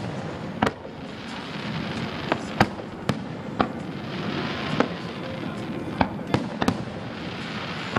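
Aerial fireworks display: about ten sharp bangs of bursting shells at irregular intervals, some in quick pairs, over a continuous rushing background.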